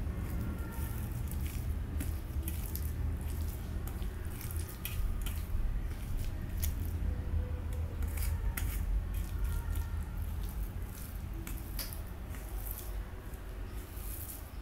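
Boiled rice being squeezed and mixed by hand with coriander paste on a steel plate: irregular small wet squelches and clicks of fingers against rice and metal, over a steady low hum.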